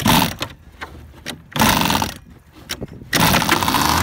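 Two-stroke gas engine of a large RC boat being cranked over in two short bursts that don't catch; on the third try, about three seconds in, it fires and settles into a steady idle.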